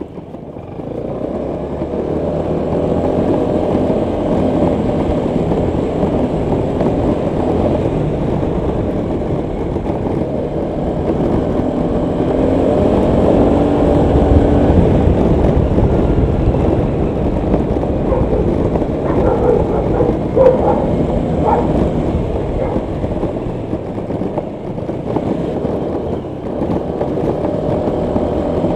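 Honda PCX 125 scooter's single-cylinder engine running under way, with road noise from riding; it grows louder over the first couple of seconds.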